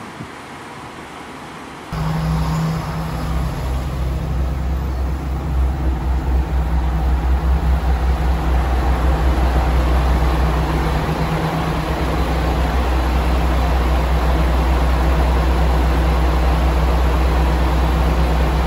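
Steady low rumble of a JR Kyushu KiHa 40-series diesel railcar's engine idling while the railcar stands at the platform. It starts about two seconds in, after a quieter stretch of outdoor background noise, and grows a little louder over the next few seconds before holding steady.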